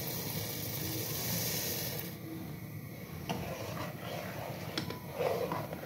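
A steady hiss for the first two seconds that stops abruptly. Then a ladle scrapes and stirs thickened kheer against the steel pot, with a few sharp clicks and a louder run of scraping near the end.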